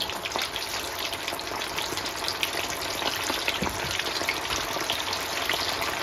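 Coated chicken wings deep-frying in hot oil: a steady sizzle with dense, fast crackling.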